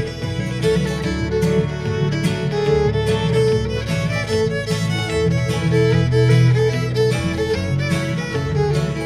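Background music: an instrumental track with fiddle and guitar over a steady beat.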